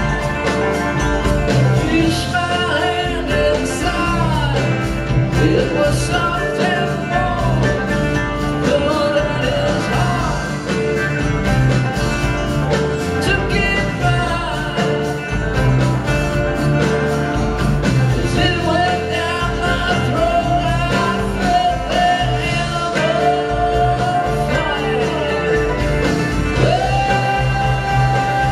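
Live band music from a bluegrass-rock string band, with banjo, acoustic guitar, drums, keyboards and bass, and a man singing lead vocals over a steady beat.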